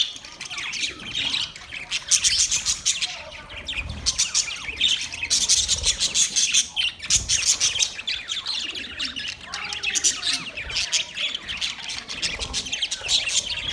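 Several budgerigars chirping and chattering continuously, their quick high chirps overlapping with hardly a pause.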